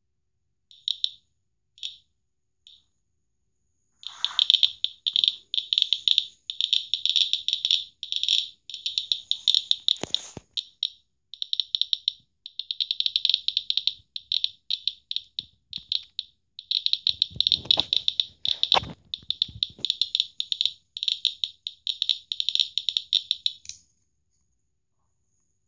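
Radiation survey meter's piezo buzzer chirping with each detected count: a few separate high-pitched chirps at first, then a rapid, dense stream of chirps from about four seconds in, as the dose-rate reading climbs to about 30 µSv/h. A couple of knocks come partway through, and the chirping stops shortly before the end.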